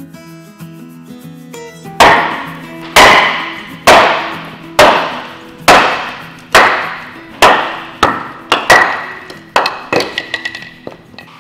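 Heavy hammer blows on a steel bar set against a thick wooden boat frame: about ten hard strikes, roughly one a second, each with a short ring, then a run of quicker, lighter taps near the end. Acoustic guitar music plays underneath.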